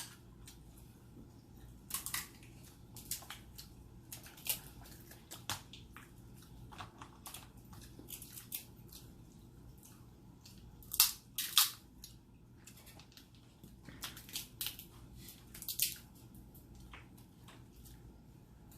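Eating sounds close to the microphone: irregular sharp clicks, crunches and crackles of chewing and food handling, loudest in a cluster about eleven seconds in.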